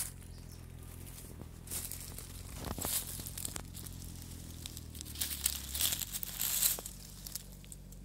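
Footsteps crunching and rustling through dry fallen oak leaves, in irregular bursts that are loudest a little past halfway.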